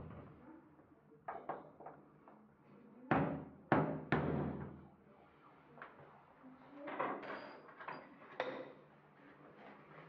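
Hand tools, a hammer and a screwdriver, knocking and clattering: a pair of sharp knocks about a second and a half in, three louder hard knocks with short ringing tails between three and four and a half seconds in, then lighter clicks and taps near the end.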